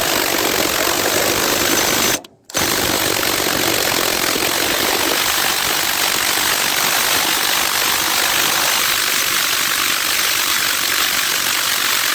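Impact wrench hammering a lawnmower transmission pulley's nut tight. It runs in two bursts: a short one, a brief stop about two seconds in, then a long run of about ten seconds.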